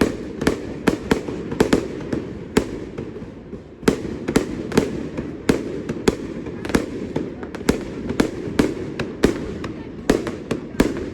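Fireworks display: a rapid, irregular string of sharp bangs from bursting shells, several a second at times, with a short lull about three seconds in before the bangs pick up again.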